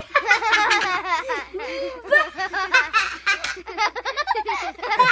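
A young girl laughing hard, in quick high-pitched bursts of 'ha ha ha' that run on without a break.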